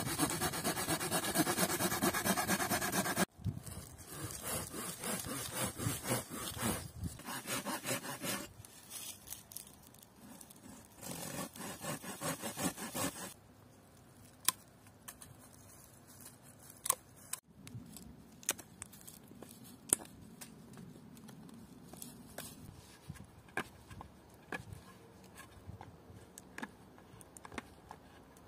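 A small hand saw sawing through a wooden stick in quick back-and-forth strokes, in several bouts over the first dozen or so seconds. After that, a knife carves the end of a stick, with scattered light clicks and scrapes.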